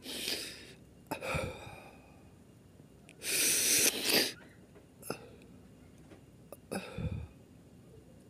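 A young man crying: sobbing, wheezy breaths and sniffs in separate bursts, the loudest and longest about three to four seconds in.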